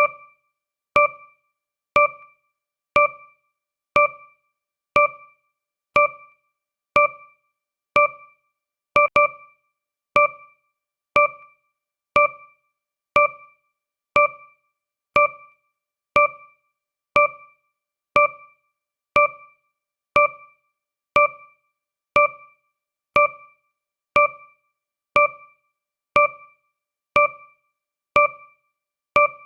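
Countdown timer sound effect: a short, pitched electronic beep like a struck keyboard note, once every second, each fading quickly.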